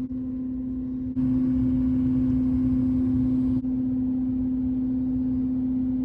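A steady low hum over a rumble. It gets abruptly louder and fuller about a second in, then drops back a little about three and a half seconds in.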